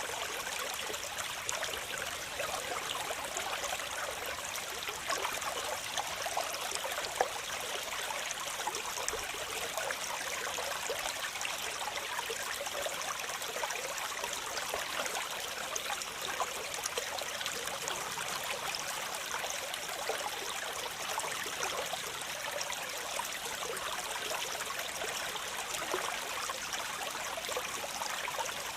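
Waterfall: water falling and splashing steadily, a continuous hiss made of many small splashes, with little deep rumble. One single splash stands out briefly about seven seconds in.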